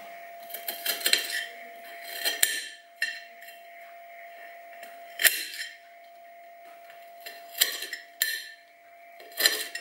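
A knife chopping Kinder Bueno wafer bars on a plate: sharp, irregular clinks and knocks of the blade against the plate, about eight of them, over a faint steady hum.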